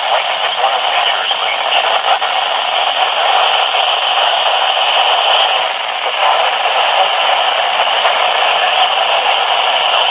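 Radio static: a steady, loud hiss from a radio receiver, thin and narrow in range, with no clear words coming through.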